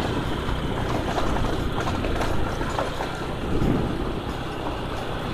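Motorcycle riding along a bumpy dirt track: the engine runs under a steady rush of wind on the microphone, with frequent light knocks and rattles from the ride.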